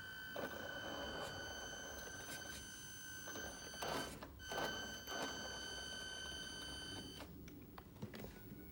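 A steady high-pitched electric whine with several light clicks and knocks. The whine cuts off suddenly about seven seconds in.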